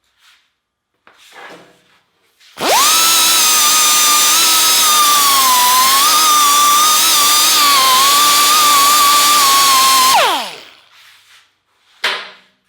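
Handheld electric power tool cleaning up a steel maul head. About two and a half seconds in its motor winds up to a steady high whine, which wavers slightly under load for about seven and a half seconds, then it is switched off and winds down quickly. A few light knocks come before it and a short click after.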